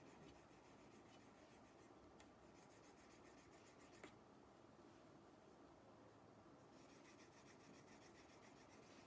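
Near silence: faint room tone, with two soft ticks about two and four seconds in.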